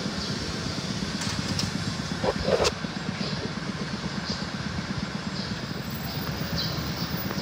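A vehicle engine running steadily with a low pulsing rumble, with short high chirps now and then and a brief louder sound with a click about two and a half seconds in.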